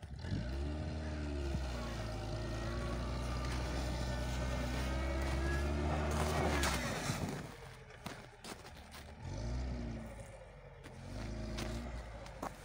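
Lada VAZ-2104's 1.3-litre four-cylinder engine revving hard while the rear wheels spin in snow, held high for several seconds, then dropping and revving up again in shorter bursts. There is a burst of hiss about six seconds in.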